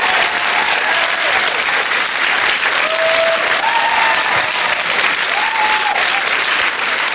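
Studio audience applauding steadily, with a few short shouts rising above the clapping.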